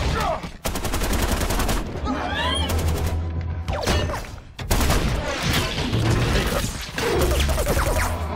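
Action-film battle sound effects: a rapid burst of automatic gunfire lasting about a second near the start, then sliding metallic screeches, crashes and more gunfire over a deep, steady rumble.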